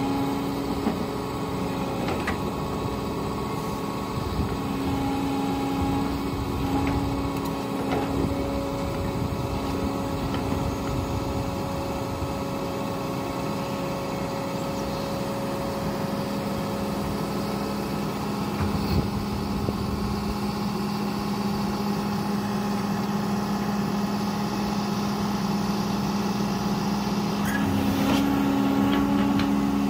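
Diesel engine of a Menzi Muck M535 spider excavator running steadily under working load as the machine moves its boom and bucket, its tone shifting about halfway through. A few short knocks are heard.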